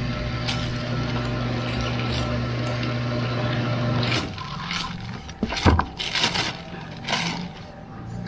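Clear plastic packaging bag crinkling and rustling as it is unwrapped by hand, with sharp crackles in the second half. A steady low hum runs underneath and cuts off about four seconds in.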